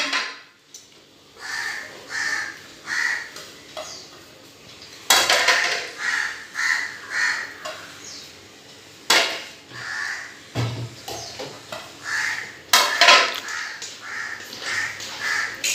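Crows cawing repeatedly in short runs of two to four caws. Three sharp metallic knocks, the loudest sounds, come as steel plates strike a steel cooking pot while chopped vegetables are tipped in.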